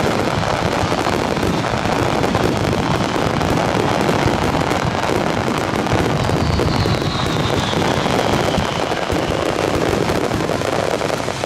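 A fireworks barrage with many shells bursting in quick, overlapping succession, their bangs merging into a continuous loud din. A faint falling whistle runs through it partway along.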